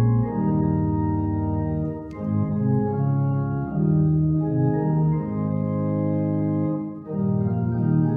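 Organ playing a hymn accompaniment in full held chords that change about once a second, with a brief dip between phrases near the end.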